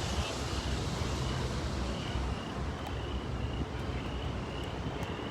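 Wind buffeting the microphone with a steady low rumble, with a faint high chirp repeating about once or twice a second.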